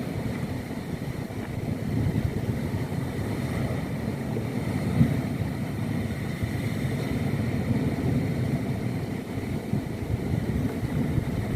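Small fishing boat's outboard motor running steadily on the sea, a low rumble with wind buffeting the microphone. A single knock sounds about five seconds in.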